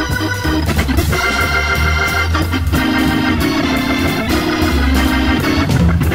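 Instrumental music led by an electric organ playing sustained chords over a moving bass line.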